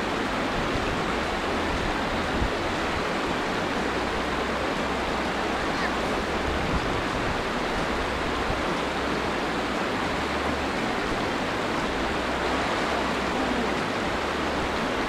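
Shallow river water rushing steadily over rocks and around a line of stone stepping stones.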